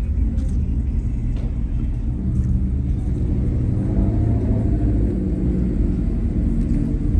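Steady low rumble of car engines running at idle.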